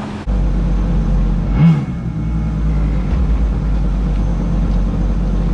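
Mini jet boat's supercharged four-cylinder engine, out of a Kawasaki Ultra 250X jet ski, running with a steady low rumble, with a brief loud rise in pitch about a second and a half in.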